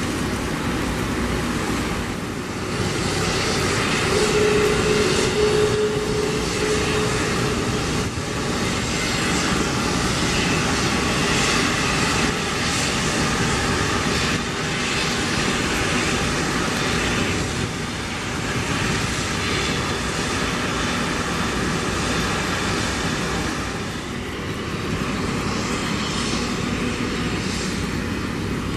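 Jet engines of an Airbus A330-243F freighter, Rolls-Royce Trent 700 turbofans, running steadily at taxi power as the aircraft taxis: an even jet rush with a faint whine over it.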